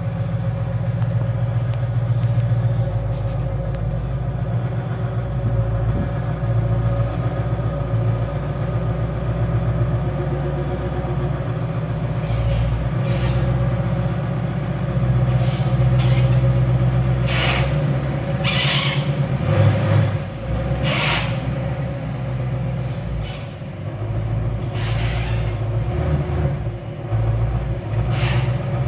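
Ford Mustang's engine running at low revs, a steady low rumble, with several short hissing bursts in the second half.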